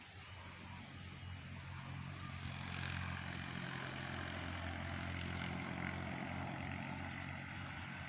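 Motor vehicle engine running steadily. It grows louder over the first few seconds, then holds an even low hum.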